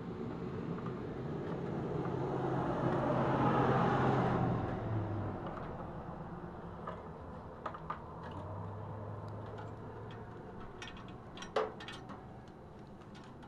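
A vehicle passes by, its engine and tyre noise swelling over the first four seconds and fading soon after. Later come a few sharp plastic clicks and taps from the headlight assembly and its bulb socket being handled, the sharpest near the end.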